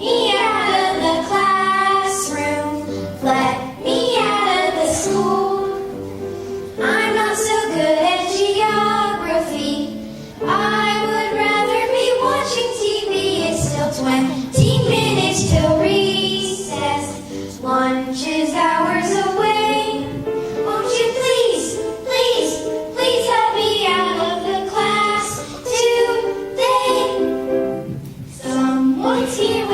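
Children singing a song over music.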